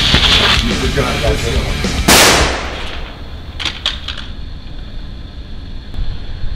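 A single pistol gunshot about two seconds in, a sharp crack with a short fading tail, over a steady music bed.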